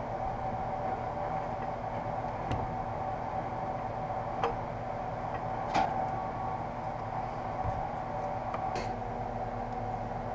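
A steady machine hum with several fixed tones, with a few light taps and knocks as the heat-wrapped exhaust header pipes are handled on the workbench.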